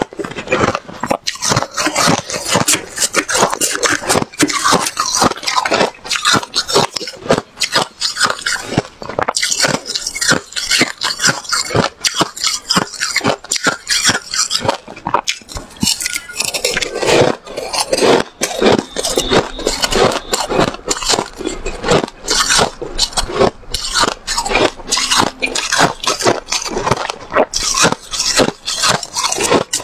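Close-miked crunching of soft white freezer frost being chewed in the mouth, a dense run of rapid crisp crunches, with a metal spoon scraping and scooping through the frost in the bowl.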